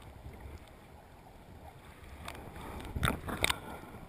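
Muffled rushing of river water heard from a GoPro held underwater in its waterproof housing, a steady low rumble. A few sharp knocks come in the second half, the loudest about three seconds in.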